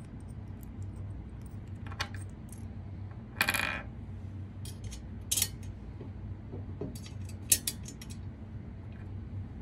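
Scattered light metallic clinks and rattles of toothed lock washers and a metal side bracket being fitted onto the threaded studs of a metal mount. There is a ringing clink about three and a half seconds in and the sharpest click near the end, over a low steady hum.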